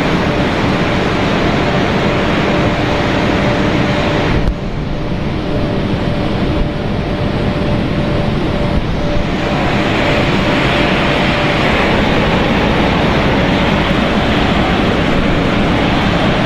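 Machinery of a corn ring snack pellet extrusion line running: a loud, steady mechanical drone with a faint steady hum-tone in it. The sound changes abruptly about four and a half, six and a half and nine seconds in.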